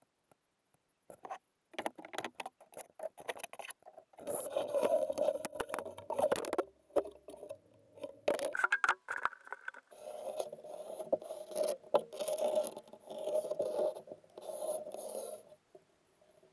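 Irregular scraping and rubbing strokes mixed with scattered clicks and light knocks, as of something being handled or worked by hand; it starts about a second in and comes in uneven spells.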